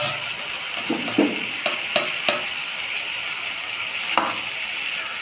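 Curry sizzling in a non-stick pan while a spatula stirs it, knocking and scraping against the pan a handful of times.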